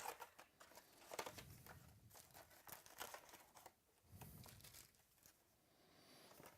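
Faint crinkling and tearing of trading-card pack wrappers being opened, in a few short rustles.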